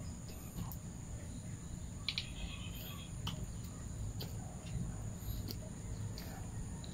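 Outdoor rural ambience: a steady high insect trill over a low background rumble, with a brief bird chirp about two seconds in and a few faint clicks.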